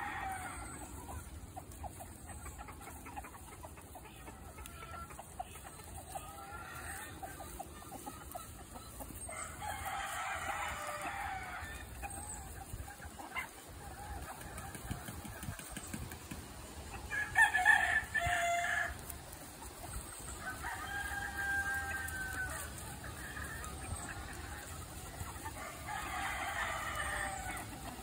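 A flock of chickens foraging, clucking, with roosters crowing several times; each crow lasts about two seconds, and the loudest comes about two-thirds of the way through.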